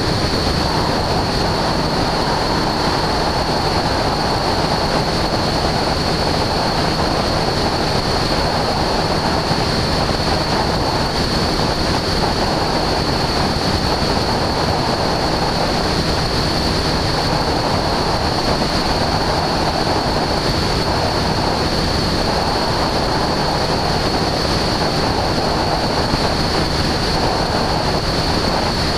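Aviat Husky A-1C light aircraft in cruise flight: its engine and propeller running steadily under loud wind rush on the microphone, with a thin steady high whine on top.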